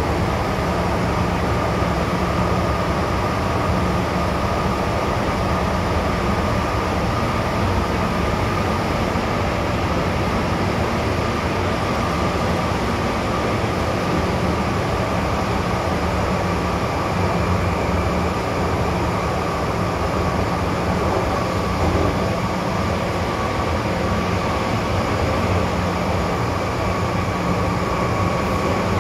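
MTR M-Train (Metro-Cammell electric multiple unit) running at steady speed, heard from inside the carriage: an even rumble of wheels and running gear with a steady high whine over it.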